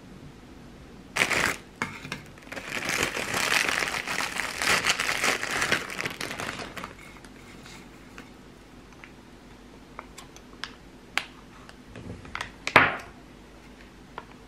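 Plastic food packaging crinkling for several seconds while crackers are taken out, after a sharp rustle about a second in. Then come scattered light clicks and taps, with a sharper knock near the end.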